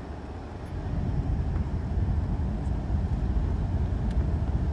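A gust of wind buffeting the microphone: a low, uneven rumble that swells about a second in and holds.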